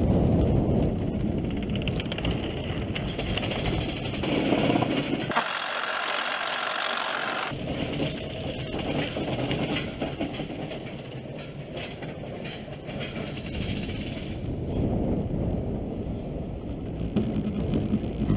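Roller coaster train rumbling and rattling along its steel track. About five seconds in, the low rumble drops out for about two seconds and a higher hiss takes its place.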